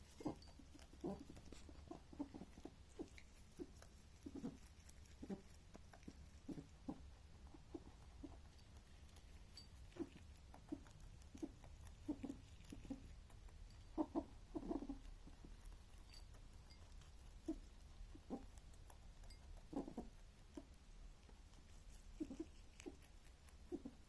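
A pet rabbit eating and making short, strange noises as it chews, coming irregularly one or two a second, with a louder cluster about halfway through.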